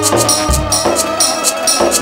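Live devotional kirtan music: harmonium playing held notes over a dholak drum beat with jingling percussion keeping time.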